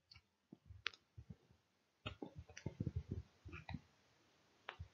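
Scattered faint clicks and soft knocks, most of them bunched together in the middle.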